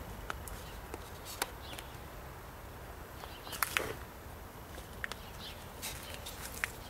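Quiet outdoor ambience: a steady low rumble with short, sharp chirps and clicks scattered through it, the loudest pair a little before the middle.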